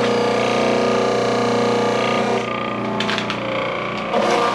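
Electric grating machine running steadily, its motor humming as it grinds peeled yautía roots into a mash for alcapurria dough.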